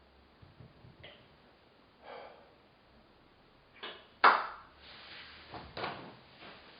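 A person hiccuping: one sudden, loud hiccup a little past the middle, with fainter short sounds around it.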